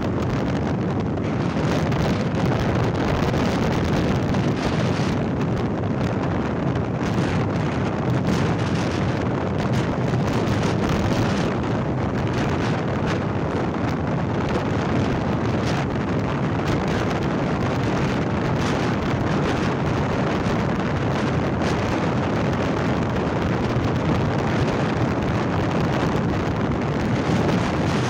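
Steady wind buffeting the microphone mixed with the Yamaha Ray ZR 125 scooter's 125 cc air-cooled single-cylinder engine running at full throttle near its top speed, as the scooter climbs from about 76 to 91 km/h.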